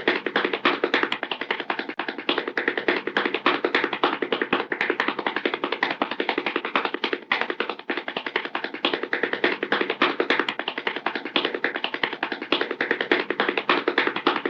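Rapid, continuous tapping or clattering over steady held musical tones, like a looped cartoon sound effect.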